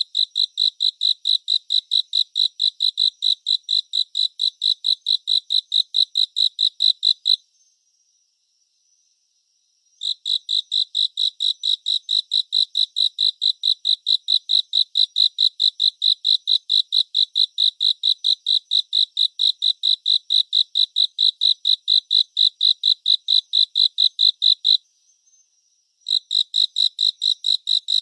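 Cricket chirping in a steady, high-pitched train of even pulses, about four a second. It stops twice: for about two and a half seconds some seven seconds in, and for about a second near the end.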